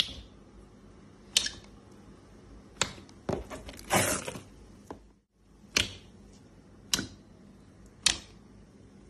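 Thick slime being poked and pressed with fingers, giving about eight sharp popping clicks roughly a second apart, with a longer crackling squelch around four seconds in.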